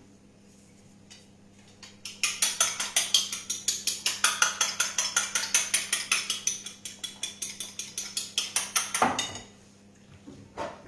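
Egg being beaten in a plate, the utensil clicking rapidly and evenly against the dish at about six strokes a second. It starts about two seconds in and stops near nine seconds with a heavier knock.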